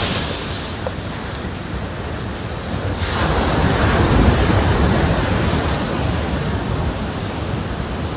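Surf breaking and washing up a sandy beach, with wind buffeting the microphone; the wash swells louder about three seconds in.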